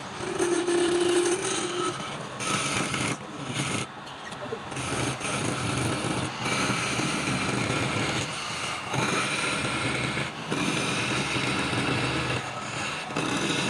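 A power tool running under load while cutting or shaping wood, dropping back and biting in again in uneven stretches every second or two.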